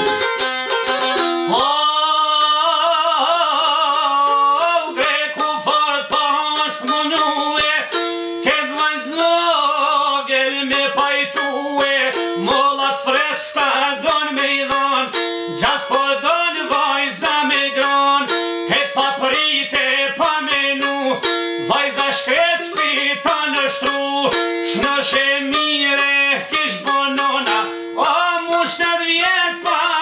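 Çifteli, the Albanian two-string long-necked lute, played fast: a rapid run of plucked melody notes over a steady held low note.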